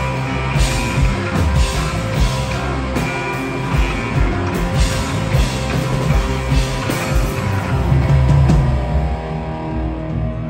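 Live rock band playing amplified electric guitar over a drum kit, with steady drum and cymbal hits. About nine seconds in the cymbals and drums drop out, leaving held low guitar notes ringing.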